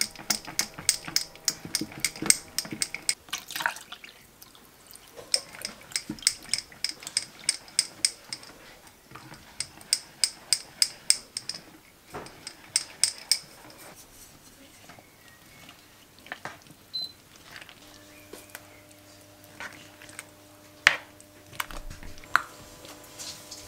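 A fork beating yogurt and sour cream in a wooden bowl, clicking against the bowl about four times a second in runs of a few seconds with short pauses. In the second half the stirring turns slower and wetter, with scattered soft clicks and one sharper knock near the end.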